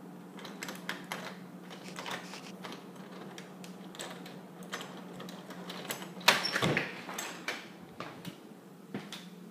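Scattered light clicks and knocks over a steady low hum, with one louder thump about six seconds in.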